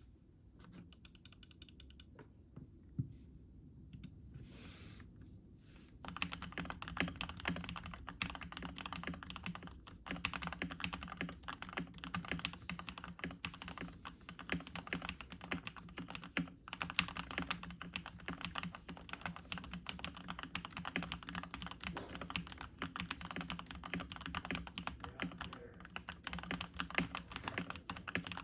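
Typing on a custom 65% mechanical keyboard (KBD67 Lite R3) with Gateron Milky Yellow linear switches, a polycarbonate plate and PBT keycaps, tape-modded and packed with foam: deep, thocky keystrokes. Light and sparse for the first six seconds or so, then fast, steady typing.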